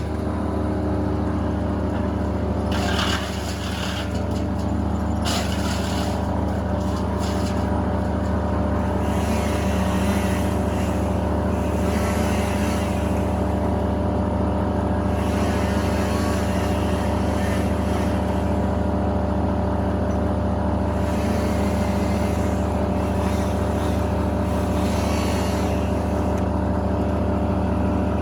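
A large engine running steadily at a constant speed, with a few short bursts of harsher noise on top about three, five and ten seconds in.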